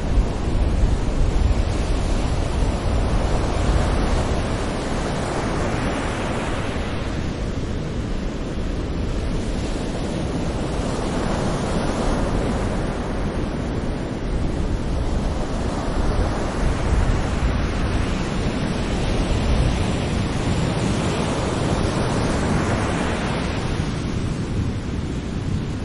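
Gentle ocean waves breaking and washing up on a beach, a wave swelling in about every five to six seconds over a steady low rumble of surf.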